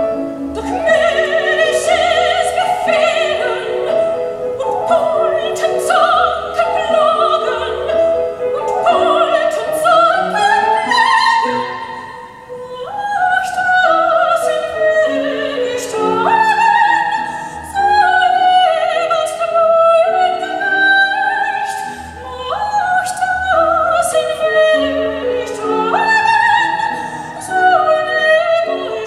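Classical music with a singing lead voice over accompaniment, played through a hi-fi system of Dared tube amplifiers and Rogers loudspeakers.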